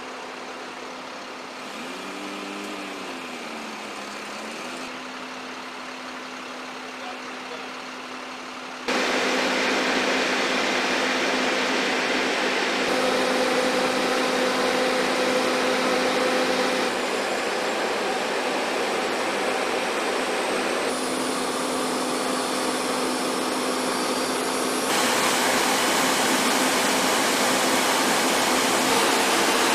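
Steady engine and machinery noise with a constant low hum, changing abruptly in level and character every few seconds and much louder from about nine seconds in. A brief wavering tone rises and falls between about two and four seconds in.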